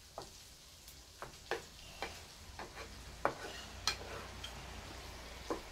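Wooden spatula stirring diced sausage, pork belly and vegetables in a nonstick frying pan: irregular knocks and scrapes against the pan over a faint sizzle of frying.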